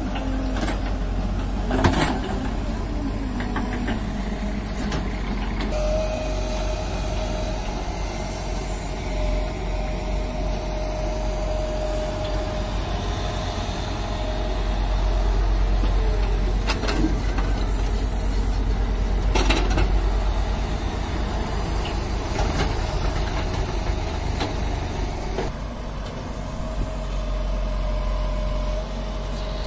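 JCB crawler excavator's diesel engine running steadily, with a few sharp knocks about 2 s in and twice more in the second half. It grows louder for several seconds mid-way.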